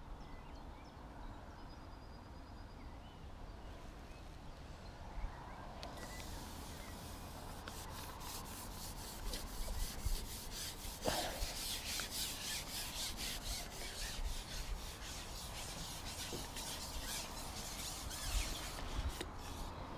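Fishing reel being wound in, a fast, even run of soft ticks starting about six seconds in.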